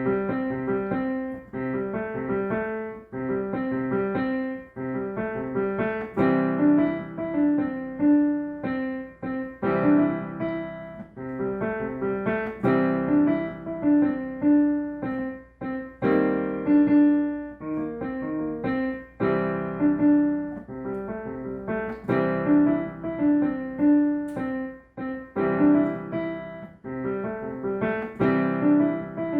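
Solo piano played in a steady rhythm of struck notes and chords, starting suddenly out of silence.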